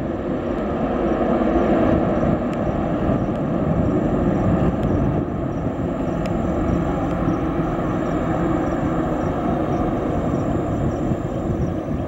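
Jet airliner engines running: a loud, steady rush of noise that swells slightly over the first two seconds and then holds.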